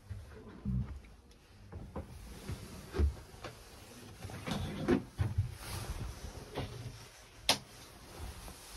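Scattered thumps, knocks and clicks of someone moving about a sailboat cabin and handling the interior fittings, with camera handling noise. A single sharp click, the loudest sound, comes near the end.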